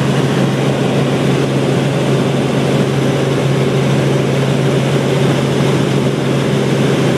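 Helicopter in flight heard from inside its cabin: a steady, loud drone of engine and rotor with a constant low hum.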